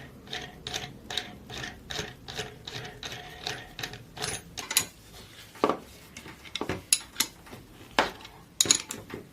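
A metal nut being tightened onto a bolt: a run of rhythmic metallic clicks, about three a second, with a ratchet-like ticking, then a few sharper separate clicks in the second half.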